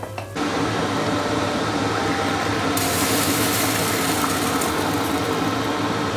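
A small electric motor starts and runs steadily with a low hum; its sound gets brighter about three seconds in.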